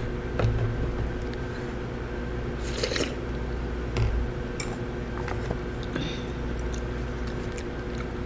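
A person eating close to the microphone: chewing, with a few light clicks of a metal spoon and chopsticks against the bowl and food tray, the loudest about three seconds in.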